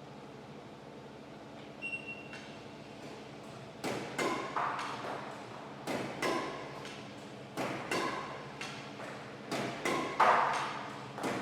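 Li-Ning Windstorm 500 badminton racket in a manoeuvre test: a run of sharp hits, each with a short ringing ping. They come in pairs or small groups about every two seconds, grow louder toward the end, and start about two seconds in.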